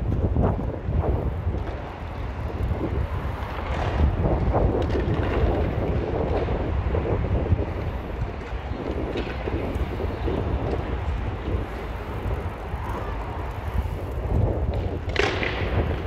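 Wind buffeting the microphone: an irregular, gusting low rumble with a noisy rush over it.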